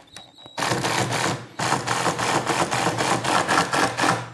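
Cordless driver sinking a waxed #8 1¼-inch screw into hard maple with a rapid, even rattle. It starts about half a second in, stops briefly, then drives on for nearly three seconds more.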